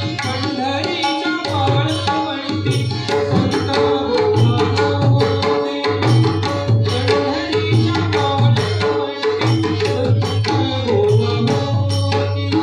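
Tabla and mridang playing fast, dense strokes in the accompaniment of a Marathi devotional abhang, over steady held melodic tones.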